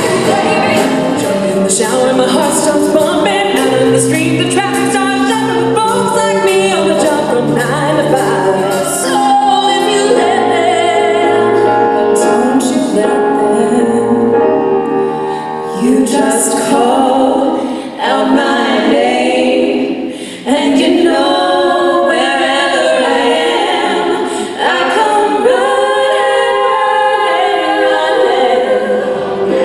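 Live concert music: female vocalists singing with piano and band accompaniment, with cymbal-like ticks keeping a beat in the first half.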